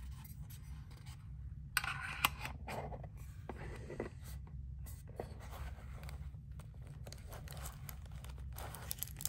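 Hands handling a metal watch tin and pulling at its foam insert: faint scraping and rustling with a few small clicks, over a steady low hum.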